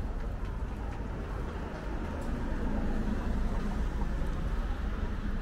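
Steady low rumble of city street ambience, like distant traffic, with a faint hum that swells from about two seconds in.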